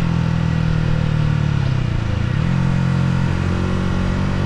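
Yamaha R125's single-cylinder four-stroke engine running steadily while riding; about two seconds in the revs dip briefly and climb back.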